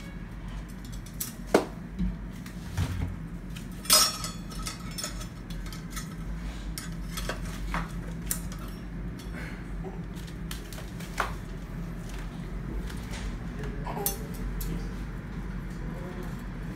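Small metal parts clinking and knocking as a bicycle chainring is fitted to the crank spider with its chainring bolts, in scattered clicks, the loudest about a second and a half and four seconds in. A steady low hum runs underneath.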